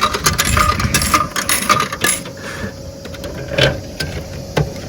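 Small hard objects clinking and rattling in quick succession for about two seconds, then two separate knocks.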